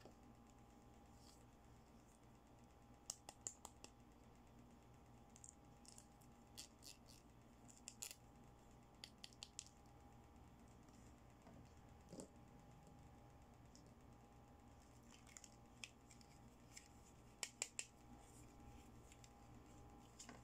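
Faint scattered clicks and taps of small plastic doll accessories being handled and set down, some in quick runs of two to four, over a steady low hum.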